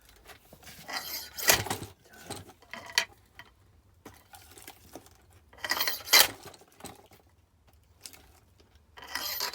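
Splitting axe chopping a slightly unseasoned oak log into pieces: three sharp blows about four seconds apart, the last near the end, with lighter knocks of wood in between.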